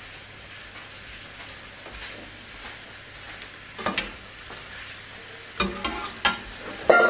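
Mushrooms sizzling steadily in a nonstick wok as they are stir-fried dry, with a metal spatula scraping and clicking against the pan about four seconds in and several times near the end.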